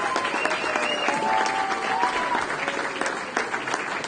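Audience applauding steadily, a dense continuous clatter of many hands clapping.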